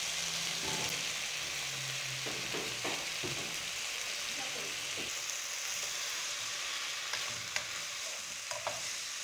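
Spiced chicken pieces sizzling steadily in a pot, being stirred, with a few scrapes of a wooden spoon and sharp clicks against the pot toward the end.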